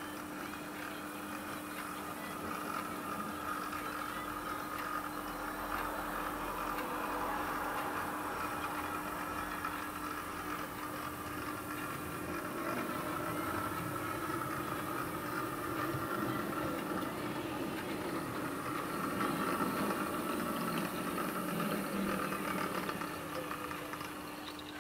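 OO gauge model diesel shunter running with its train on the layout: a steady mechanical hum and wheel rumble, growing louder in the second half as the train approaches.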